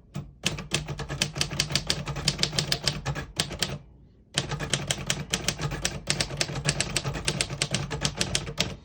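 1952 Royal Quiet Deluxe manual portable typewriter being typed on quickly, with rapid key strikes in two long runs and a short pause about four seconds in.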